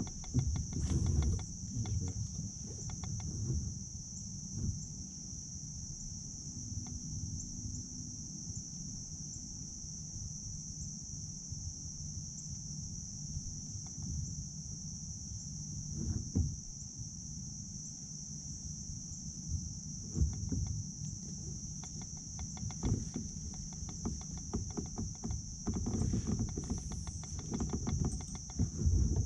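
Steady high-pitched insect chorus, with scattered low knocks and handling noise close by, loudest in a few short spells.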